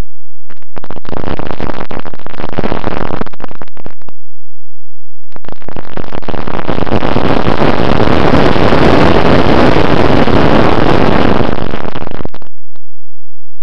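Loud, distorted rush of wind buffeting the onboard camera's microphone on a Bixler RC plane in flight, overloading it. The noise cuts out completely at about 4 seconds, comes back about a second later, and cuts out again near the end.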